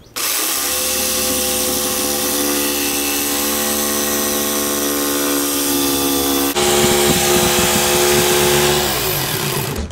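Hitachi circular saw cutting plywood, its motor whining steadily under load. About six and a half seconds in the sound changes abruptly and gets a little louder, and near the end the pitch falls as the blade spins down and stops.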